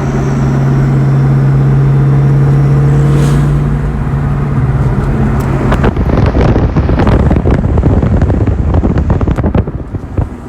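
Supercharged 4.6-litre V8 of a 2003–04 Mustang SVT Cobra running with a steady drone, turning rougher and crackling about six seconds in.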